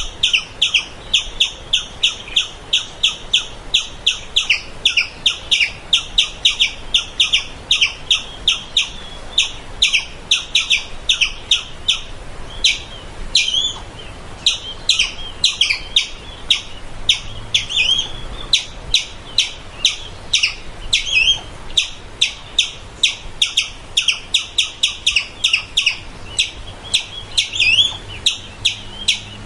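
Squirrel giving rapid repeated chirping alarm calls, several sharp chirps a second, with a short pause about twelve seconds in.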